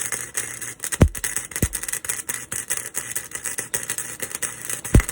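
Welding arc crackling steadily while a truck's steel tailpipe is being welded, with a few low thumps, and cutting off suddenly at the end as the weld stops.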